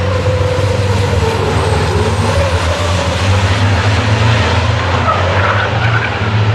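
Racing trucks' diesel engines running hard together through a corner: a loud, steady deep drone with a higher tone that wavers in pitch.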